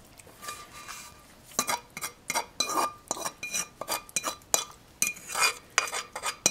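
Fork scraping and clinking against a skillet as thick mushroom sauce is pushed out of it: a rapid run of short metallic clinks and brief scrapes.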